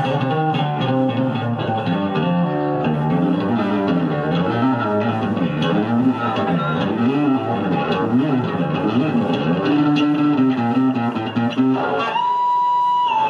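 Electric bass guitar played solo through a loud amplified rig: rapid runs of notes sliding up and down in waves, then one high note held for about a second near the end.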